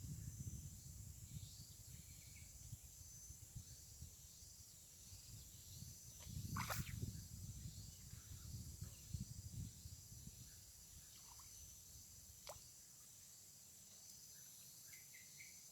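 Faint outdoor ambience: a steady high insect drone, a low uneven rumble on the microphone, and two sharp clicks, one about halfway through and one later.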